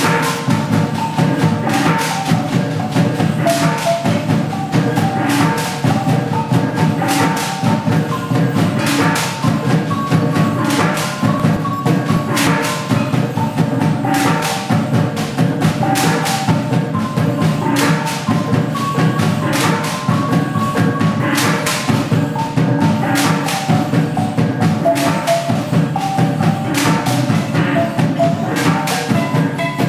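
Kulintang-style gong-chime music: short pitched notes step through a melody over drums and a steady wooden clacking beat.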